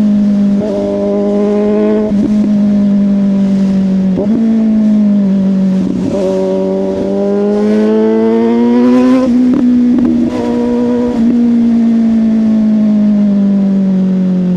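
Suzuki GSX-S750's inline-four running through a Yoshimura exhaust under way, its note broken briefly several times as the throttle is rolled off and on. The pitch climbs steadily as it accelerates about six to nine seconds in, then holds and slowly falls.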